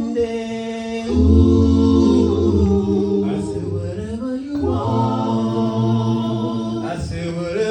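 A small vocal group singing soul a cappella in close harmony, holding two long chords, the second coming in about halfway through.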